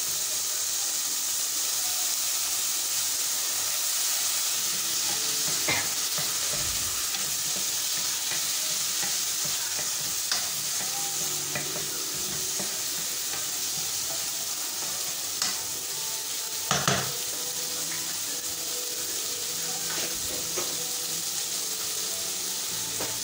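Chicken pieces and mushrooms sizzling steadily in a non-stick wok, stirred with a wooden spatula that knocks against the pan a few times.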